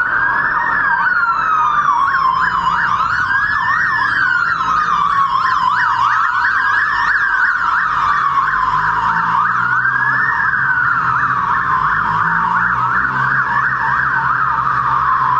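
Police motorcycle sirens passing: a slow wail rising and falling about every three seconds, with a faster yelp over it. Engine and traffic rumble runs underneath.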